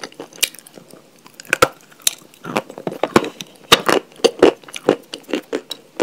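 Close-miked chewing of a mouthful of crunchy chalk, with irregular sharp crunches that come thickest through the middle.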